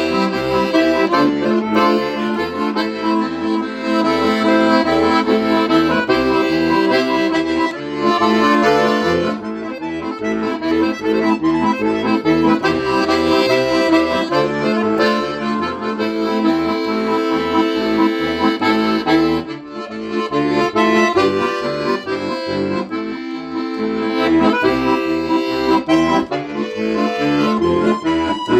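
Bayan (Russian button accordion) playing a melody over held chords, with a regular rhythmic bass line underneath.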